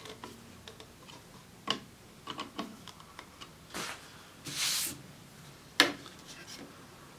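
Handling noise from a trim router's clear plastic base and a screwdriver: scattered small clicks and ticks as the screws are worked, a brief rustle about halfway through, and a sharp knock near the end as the router is set down on the wooden workbench.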